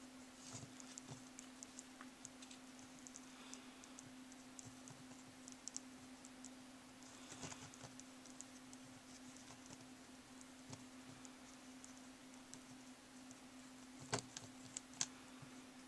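Faint, scattered small clicks and sticky ticking from fingers handling and pressing soft candy strands into a candy doll's hair, with a sharper cluster about seven and a half seconds in and a couple of louder clicks near the end. A steady low hum runs underneath.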